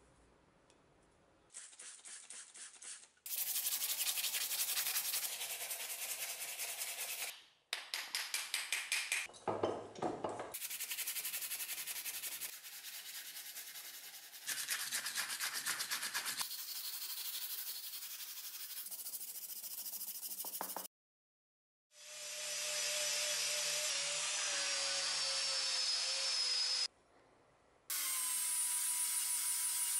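Steel axe head being worked in short cuts: a hand file rasping across the metal in quick strokes, then an angle grinder running against the steel with a steady whine in the last stretch.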